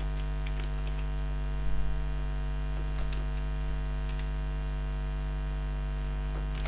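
Steady electrical mains hum on the recording, with a few faint computer keyboard clicks as code is typed.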